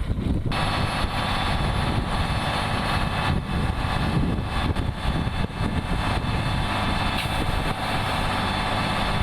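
A motor running steadily, with a dense hum of many steady tones, starting about half a second in over low wind rumble on the microphone.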